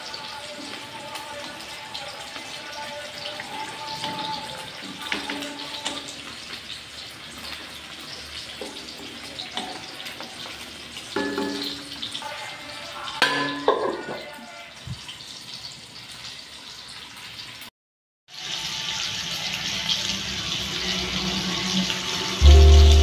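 Pakbet of chicken and vegetables simmering and bubbling in an aluminium wok, stirred with a wooden spoon, with a few scrapes and knocks. After a sudden break about 18 seconds in, sausages sizzling steadily as they fry in oil, with music starting near the end.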